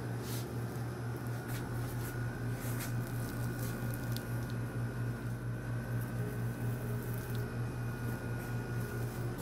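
Blue painter's tape being peeled off the wet epoxy edge of a canvas, giving a few soft, sticky rips and crackles over a steady low hum.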